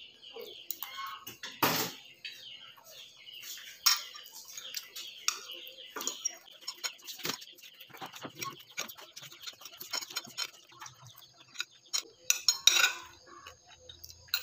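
Utensils clinking, tapping and scraping against dishes in a run of irregular short clicks, with louder knocks about two seconds in, around four seconds and near the end.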